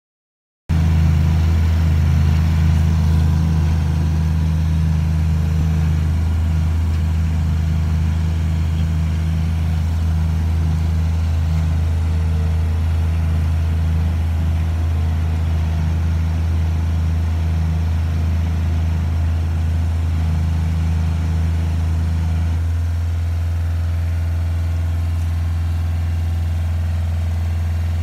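Diesel engine of a Bitelli BB632 asphalt paver idling steadily with a low, even hum.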